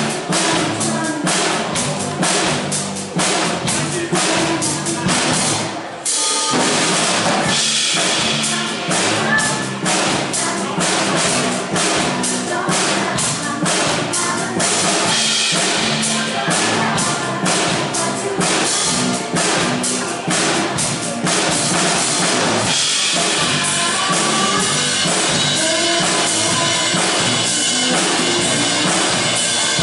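A band playing a pop song, with a drum kit keeping a steady beat of kick and snare; the music dips briefly about six seconds in.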